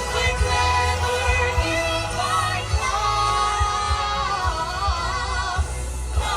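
Background music: a Christmas pop song with a steady beat and wavering held sung notes, with no words heard.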